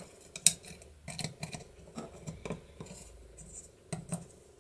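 Small steel parts of an opened door bolt lock's mechanism handled by hand: scattered light metallic clicks, taps and scrapes, the sharpest about half a second in.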